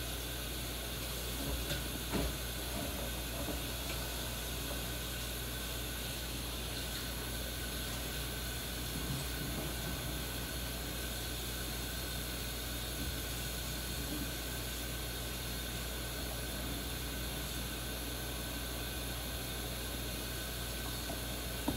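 Kitchen tap running steadily off-camera, filling a roaster pan with water: an even hiss that cuts off suddenly at the end as the tap is shut.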